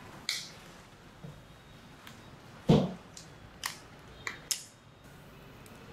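Small plastic clicks and handling as a microSD card is taken from its clear plastic case and fitted into a small touchscreen video recorder, with one louder knock about three seconds in.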